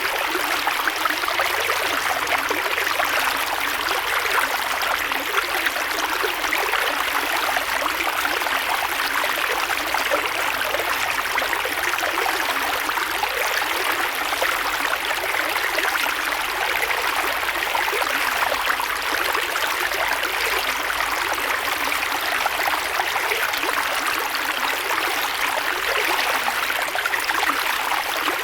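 A creek flowing steadily over rocks: continuous rushing and babbling water with a fine, bright trickling texture.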